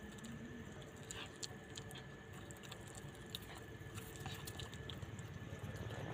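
A stray puppy chewing and biting food, heard as faint scattered clicks and crunches.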